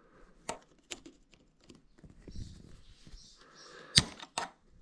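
Sharp metal clicks of circlip pliers working the seeger ring in the bore of a Brembo 16x18 brake master cylinder: two light clicks near the start, soft handling rustle, then a loud click and a smaller one near the end.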